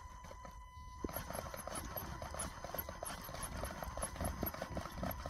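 Axial SCX10 II Unimog RC crawler's motor and drivetrain under throttle, straining against steep rock, with a fast, even, rhythmic clicking that starts about a second in.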